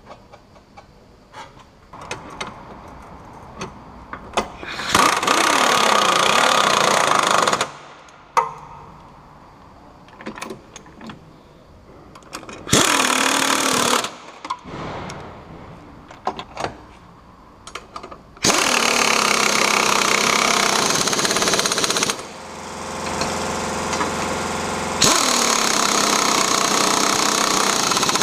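Impact wrench hammering on the bolts of a tow-hitch bracket as they are tightened, in several bursts of a few seconds, with the longest run near the end. Light clicks and taps of the socket and spanner come between the bursts.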